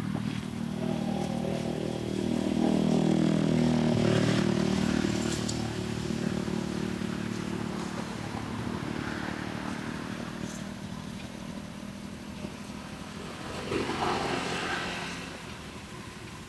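A motorcycle engine running as it passes, loudest three or four seconds in and then fading away.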